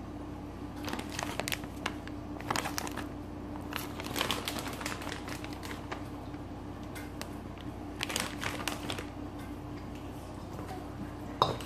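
Plastic bag of shredded cheese crinkling as it is shaken out over a stainless steel mixing bowl, then a spoon clinking and scraping against the bowl as the cheese is stirred into the mix. The handling comes in short clusters of rustles and clicks over a steady low hum.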